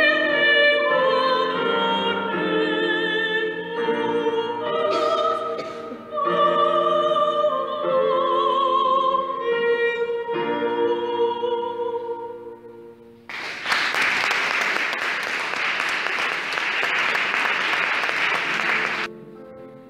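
A woman singing in operatic style with strong vibrato, accompanied by a keyboard. The song ends about two-thirds of the way through, and applause follows for about six seconds. Near the end, the keyboard starts the next piece.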